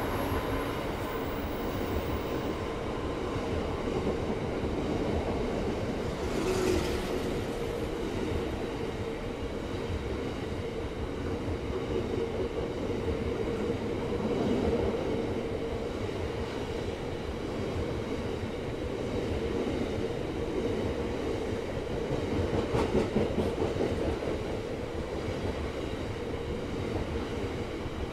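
Bogie hopper wagons of a freight train rolling steadily past at close range. Their wheels make a continuous noise on the rails with a steady hum through it, and it swells briefly a couple of times.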